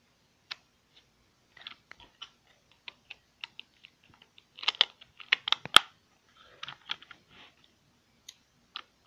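Irregular plastic clicks and rattles from a small toy RC car being handled as its AA battery compartment cover is fitted back on, with a busier, louder cluster of clicks about halfway through.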